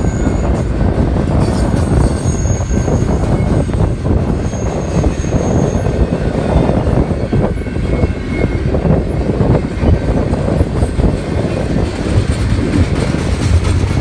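BNSF double-stack intermodal container train rolling steadily past, a continuous rumble and clatter of wheels on rail. Wind buffets the microphone, and faint high wheel squeals come through twice a few seconds in.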